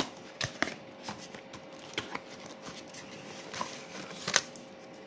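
Cardboard box and paper handled by hand: scattered rustles, taps and flap clicks as the box is opened and the instruction leaflet is pulled out.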